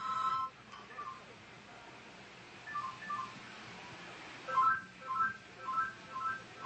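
Mobile phone's two-tone ring cutting off just after the start, then the phone's keypad beeping as its buttons are pressed: a few scattered beeps, then a regular run of about two beeps a second in the second half.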